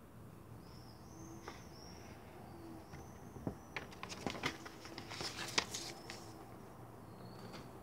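A paper instruction leaflet rustling and crackling as it is handled, with a run of sharp clicks and taps between about three and a half and six seconds in. A few short high chirps sound through it.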